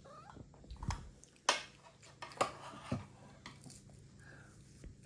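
Tableware clinking and knocking at a meal: several short, sharp knocks of dishes and cutlery, the loudest about a second and a half in.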